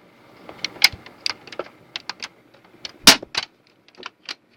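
PC CD-ROM drive working as it is tested: a faint motor whir near the start, then a string of mechanical clicks and knocks, the loudest about three seconds in.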